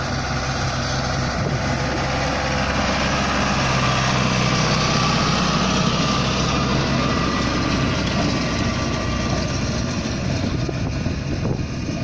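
Tractor engine running steadily while it pulls a loader wagon that is gathering cut grass from the swath.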